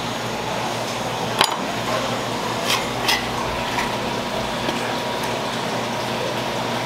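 Kitchen knife blade clicking against a plastic cutting board while slicing open a spoon worm: a sharp knock about a second and a half in and two more near three seconds, over a steady background hiss.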